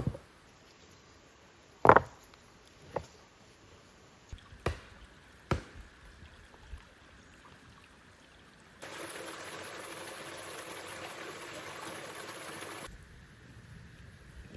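Several sharp knocks, the first two the loudest, spread over the first six seconds. Then a steady hiss of about four seconds that starts and stops abruptly.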